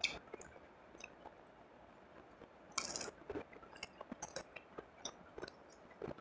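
Close-miked eating: fingers picking at and tearing crispy fried eel, and chewing, heard as scattered small clicks and crunches. There is a short, louder crackle about three seconds in.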